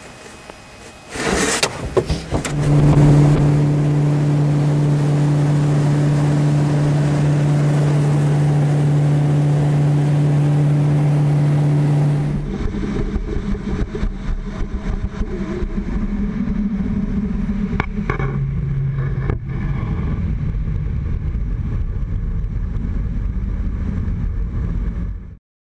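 Outboard motor on a small aluminium boat starting up about a second in and then running with a steady hum. About halfway through, the sound changes to a rough rush of engine, wind and water as the boat planes at speed.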